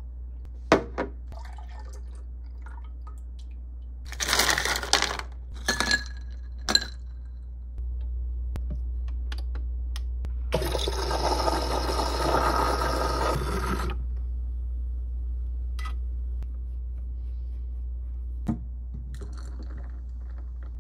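Milk pouring from a carton into a steel frothing pitcher, then an espresso machine's steam wand hissing for about three and a half seconds as it froths green tea milk, over the machine's low hum. Near the end the frothed milk is poured into a glass of ice.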